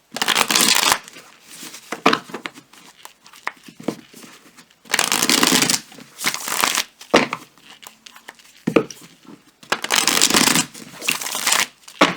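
Tarot cards being shuffled by hand: three rustling bursts of shuffling, each a second or two long, with light taps and clicks of the deck between them.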